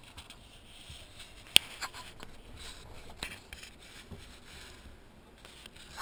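Scattered light clicks, scrapes and rubbing in a small boat's cabin, with one sharp click about a second and a half in and a smaller one about three seconds in.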